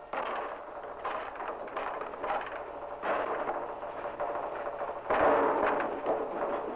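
Hammers pounding on a wooden house frame: many rapid, overlapping blows, louder about five seconds in, over a steady low hum.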